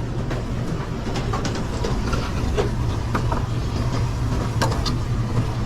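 Busy commercial kitchen line: a steady low rumble of equipment running, with scattered short clinks and knocks of pans and utensils being handled.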